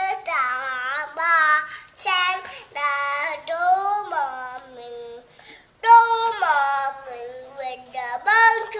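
A young child singing to herself: a wandering tune of held notes that slide up and down, broken by short pauses.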